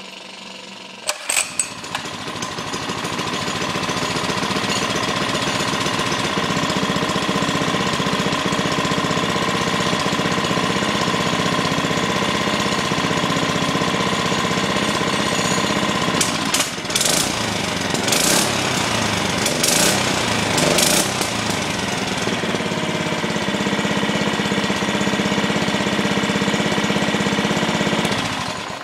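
Small single-cylinder four-stroke Baja mini bike engine running unmounted, picking up speed over the first few seconds and then holding a steady speed. It surges louder a few times about two-thirds through and shuts off near the end.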